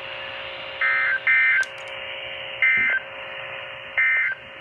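NOAA Weather Radio SAME end-of-message data bursts: four short, rapid two-tone digital warbles, each about a third of a second long, spaced a second or so apart. They mark the end of the required weekly test broadcast and play over a radio's steady hiss and faint hum.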